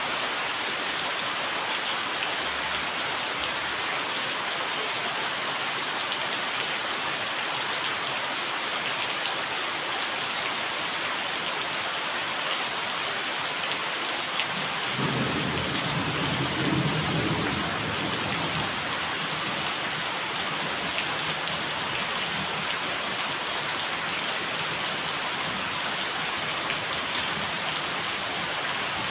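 Steady rain falling, with a roll of thunder rumbling in about halfway through and fading away over several seconds.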